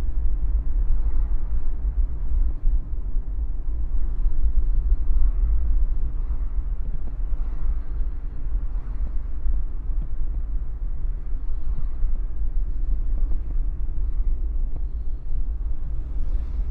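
Car driving along a road: a steady low rumble of road and engine noise with a light hiss of tyres and air.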